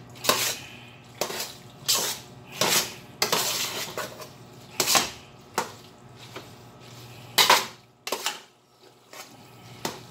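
Metal spoon scraping and clanking against the sides and bottom of an aluminium stockpot while thick macaroni and tomato-sauce goulash is stirred, in irregular strokes about once a second with a short lull about eight seconds in.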